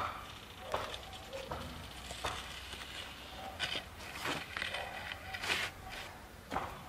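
A wooden board being shifted and laid on gritty dirt ground, giving a run of irregular short scrapes and light knocks.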